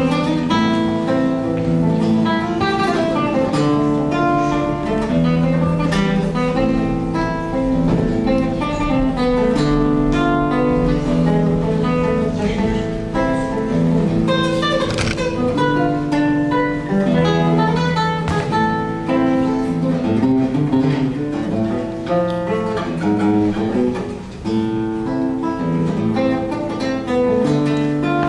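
Acoustic guitar music: a plucked melody over long held low notes.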